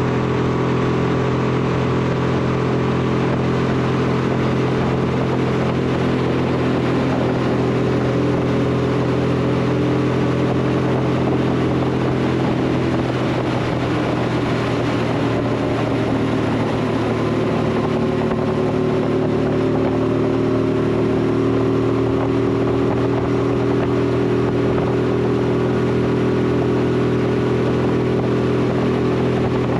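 Honda VT1100 Shadow Ace V-twin motorcycle engine running under way, heard from a chest-mounted camera over steady road and wind hiss. Partway through, the engine note wavers, then climbs gradually in pitch as it picks up speed.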